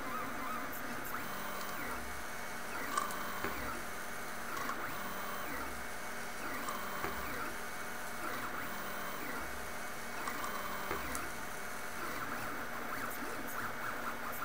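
MendelMax 1.5 3D printer running, its stepper motors whining in shifting tones with short chirps as the head moves, over a steady hiss.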